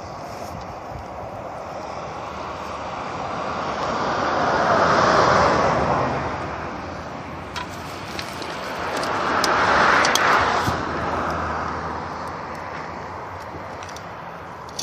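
Two cars passing by one after another, each swelling up and fading away, the first about five seconds in and the second about ten seconds in, with a few light clicks between them.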